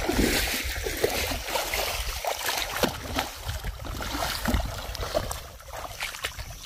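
A hooked fish thrashing and splashing in shallow water as it is pulled in to the bank on a line, a run of irregular splashes.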